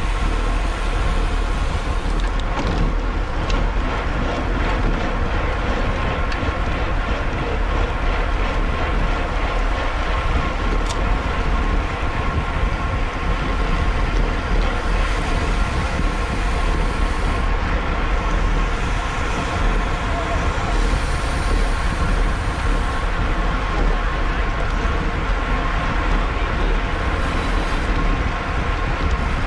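Steady wind rush buffeting the microphone of a road bike ridden at race speed, with a continuous low road rumble.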